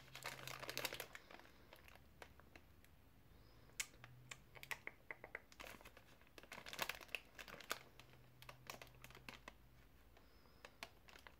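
Faint crinkling of a plastic ice cream wrapper being handled and turned in the hands, a scatter of small crackles that comes and goes in a few short spells.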